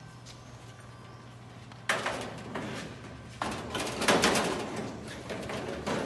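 Metal baking trays clattering and rattling against one another as a stack of them is handled. About two seconds in comes one sudden clatter, and about a second and a half later a longer run of metallic knocks and rattles.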